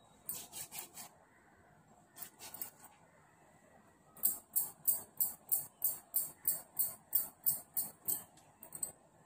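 Fingers rubbing and massaging oil-soaked hair and scalp. There is a short run of strokes near the start, a few more about two seconds in, then a steady run of about three strokes a second from about four seconds in until near the end.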